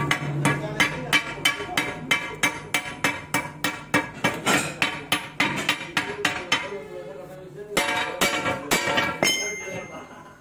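Hand hammer striking the steel main leaf of a truck leaf spring at a fresh, still red-hot weld. The blows ring, about three a second. They break off about two-thirds of the way through, then a few more follow and a last ring hangs on near the end.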